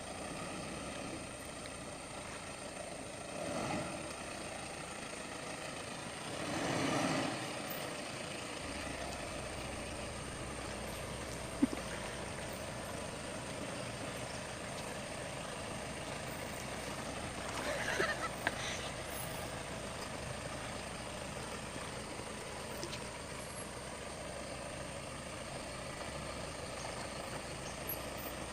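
Heavy vehicle engine running low and steady, with a few brief louder swells and one sharp click about twelve seconds in.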